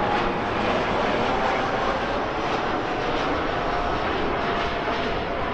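Airbus A320-211 on final approach with its landing gear down, its CFM56 turbofan engines making a steady jet noise. A faint whine in it slowly falls in pitch as the airliner passes.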